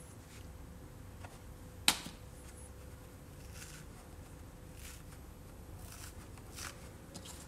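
Hands working the foam insert of a small Elephant E090 hard plastic case: one sharp knock about two seconds in, then soft, scattered rustles of fingers pressing and picking at the foam.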